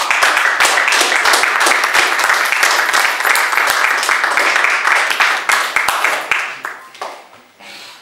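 Audience applauding, dense handclaps that die away about seven seconds in.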